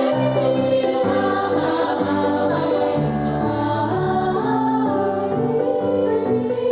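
Music: singing with several voices in harmony over held instrumental notes and a moving bass line.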